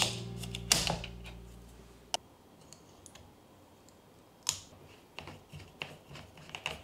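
A handful of sharp plastic clicks and taps as the cap and two-pack connector of a Heinz ketchup bottle are handled, opened and put back on, spaced out over a few seconds with a cluster near the end. Guitar music fades out over the first two seconds.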